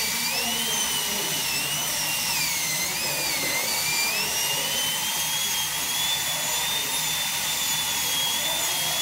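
High-speed dental handpiece with a round bur whining as it cuts a groove joining the mesial and distal pits of a model premolar. The pitch wavers and dips a few times in the first few seconds, then holds steadier and slightly higher.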